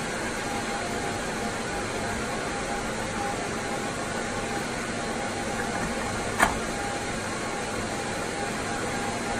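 Steady fan and air-handling whir with a faint hum. A single sharp plastic click about six seconds in, as the 3D-printed frame of memory modules is set down into the cardboard box.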